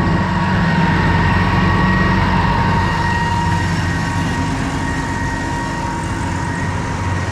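Heavy diesel harvest machinery running steadily, with a constant high whine over the low engine sound.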